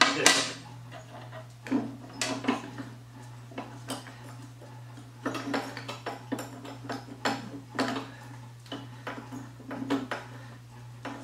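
Wrench and metal parts of a mower deck's spindle and pulley assembly clinking and knocking as a bolt is worked loose. The knocks come in irregular bursts, the loudest at the very start, over a steady low hum.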